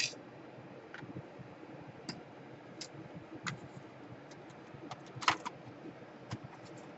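Scattered light clicks and taps, about a dozen, from tools and plastic laptop parts being handled during disassembly, with a louder click at the start and another about five seconds in.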